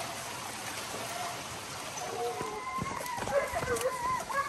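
Hunting dogs baying on the trail of peccaries, wavering howls starting about two seconds in, over a steady wet rustling haze.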